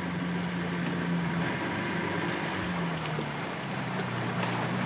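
Small jet boat's engine running at low speed, a steady drone that dips in pitch partway through, over the wash of water.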